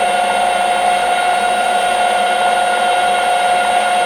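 Metal lathe running steadily with its spindle turning and no cut yet being taken, giving a constant whine.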